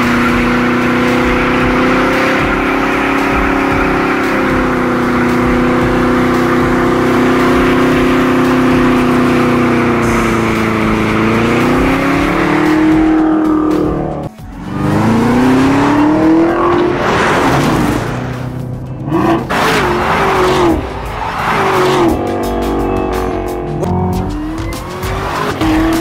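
2017 Chevrolet Camaro ZL1's supercharged 6.2-litre V8 held at high revs in a long steady burnout, tyres spinning. About fourteen seconds in the sound drops and breaks off. Then the revs climb again, and the rest comes in short choppy bursts of revving and tyre squeal.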